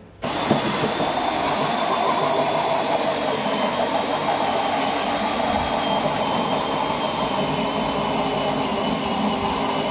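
Cordless drill driving a hole saw through a plastic sheet, cutting steadily with a thin high whine joining about three seconds in.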